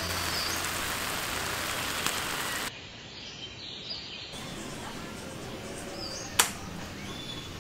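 Diced beef, onion and nopales sizzling as they fry in a skillet. After about two and a half seconds this gives way to quieter open-air background with a few faint bird chirps, and one sharp click comes near the end.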